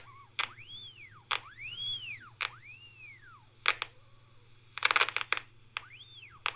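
Whistle from a handheld radio receiver's speaker as it picks up the Marconi TF995A/5 signal generator while the generator's frequency dials are turned. Tones glide up and back down about once a second, each broken by a click, with a burst of crackling about two-thirds of the way through.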